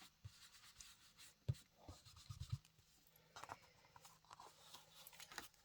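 Faint scratchy rubbing and a few light taps from an ink blending brush being worked along the edges of cardstock.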